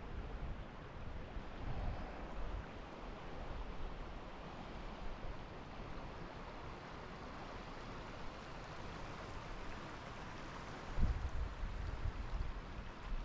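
Shallow river rushing steadily over rocks and riffles. Low rumbles of wind buffet the microphone now and then, loudest about eleven seconds in.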